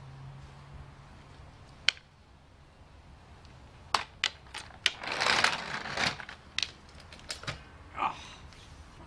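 Clanks, knocks and scraping of a heavy Nissan Leaf battery pack being pried off a furniture dolly with a long bar and sliding down onto concrete: one sharp click about two seconds in, then a burst of clanks and a scrape in the second half.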